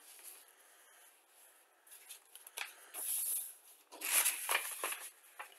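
Paper rustling and sliding as a large printed instruction sheet is shifted and pressed flat by hand on the table, in two short bursts about three and four seconds in, with only faint handling ticks before them.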